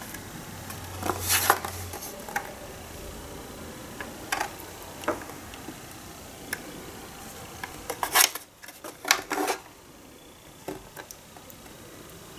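Handling noise from the open metal chassis of a cassette deck being moved and turned on a towel: scattered clicks and knocks, the loudest about a second and a half in and again around eight to nine seconds in.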